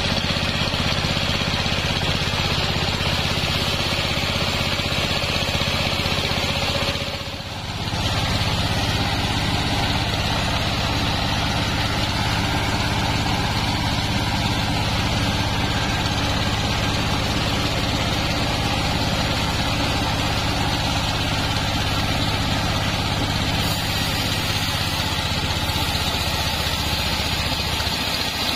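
Stationary engine powering a bandsaw mill, running steadily as it turns the V-belt pulley. There is a brief drop in level about seven seconds in.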